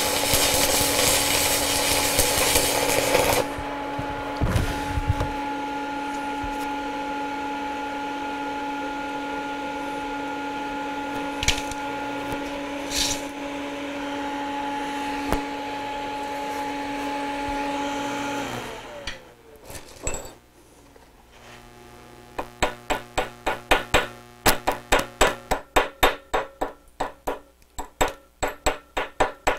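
Stick-welding arc of a 7018 rod overdriven at 215 amps, crackling for about three seconds, then cutting off. A steady machine hum follows and winds down about 18 seconds in. Near the end, repeated metal strikes, about two a second, as slag is chipped off the overheated bead.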